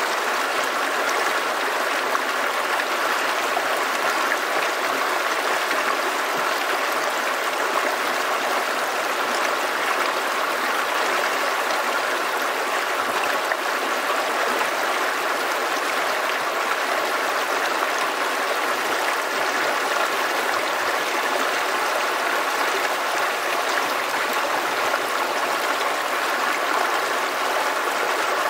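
Shallow creek running over rocks close by, a steady babbling of water that holds even throughout.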